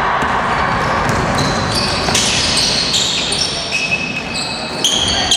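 Basketball game on an indoor court: sneakers squeaking sharply on the gym floor from about two seconds in, with the ball bouncing, over a steady din in the hall.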